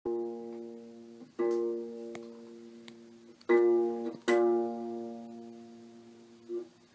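Title music: plucked guitar chords struck four times, a few seconds apart, each left to ring and fade away.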